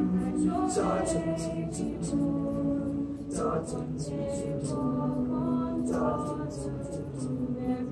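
Eighth-grade mixed choir of boys' and girls' voices singing a cappella in parts, holding sustained chords that change every second or two, with crisp consonants sung together at a few points.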